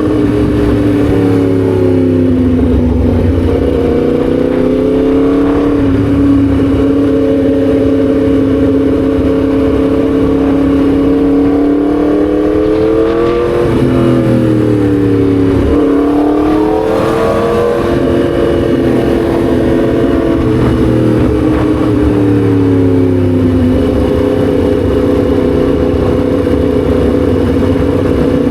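Yamaha MT-10 SP's crossplane inline-four engine running under way, its pitch easing down and up with the throttle; about halfway the revs climb, drop sharply, then climb and settle back to a steady cruise.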